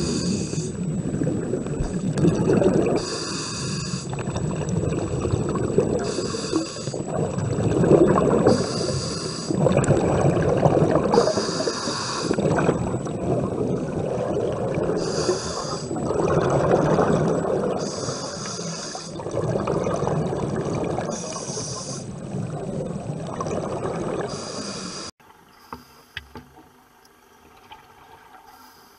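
Scuba diver breathing through a regulator: a hiss on each inhale alternates with a rush of exhaled bubbles, in a cycle about every three seconds. Near the end this cuts off suddenly to a faint underwater background with a few small clicks.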